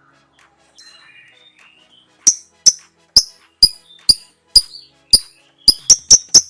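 Lovebird giving its 'ngekek' call: a run of loud, shrill, sharp chirps about two a second that come faster near the end, after some faint twittering.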